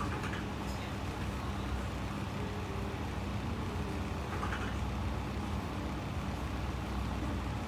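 Steady low background hum and rumble with a held low tone, with two faint light clicks, one near the start and one about halfway through.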